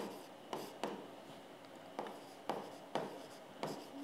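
Pen tip tapping and scratching on an interactive display screen during handwriting: a run of faint, irregular ticks, about seven in four seconds.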